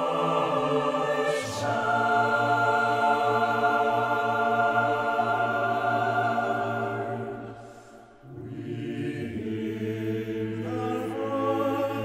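Mixed choir of men and women singing held chords. The chord shifts about a second and a half in, the voices fade nearly away just before the middle, then the choir comes back in on a new chord.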